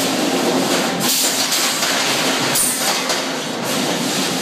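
Sawmill head rig running: a shotgun-feed carriage runs a log along its track past a circle headsaw, a loud steady clatter and rumble, with a brief high hiss a little over halfway through.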